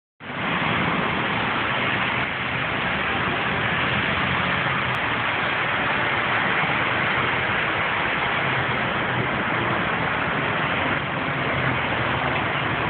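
Steady hiss of busy freeway traffic, an even wash of tyre and engine noise with no single vehicle standing out.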